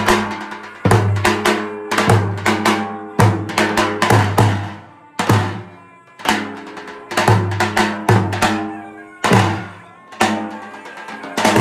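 Large double-headed Albanian bass drum (lodër/daulle) beaten with a heavy stick, strong ringing strokes at about two a second with brief gaps, driving a traditional dance rhythm.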